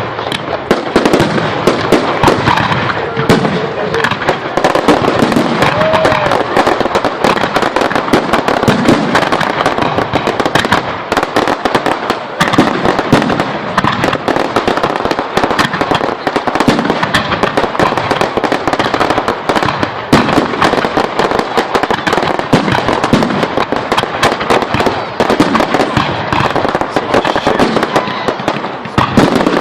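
Fireworks display going off in a dense, unbroken barrage: rapid bangs and crackles, many a second, with no let-up.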